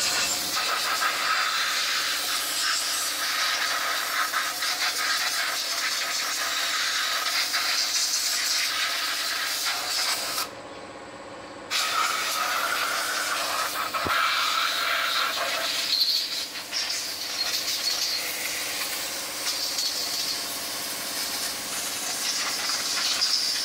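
Compressed air hissing steadily from a cup-type air spray gun on a coiled air hose, blasting the stripped Suzuki F6A engine block clean. It stops once for about a second near the middle, then resumes.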